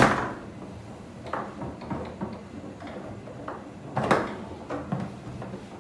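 Foosball table in play: the ball is struck by the figures and knocks against the table, with irregular sharp clacks. The loudest comes right at the start, another strong one about four seconds in, and lighter knocks fall between.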